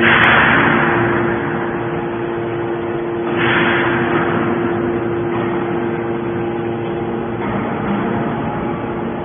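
YDF-63 hydraulic scrap-metal baler running: a steady hum from its hydraulic power unit, with two louder rushing surges, one at the start and one about three and a half seconds in.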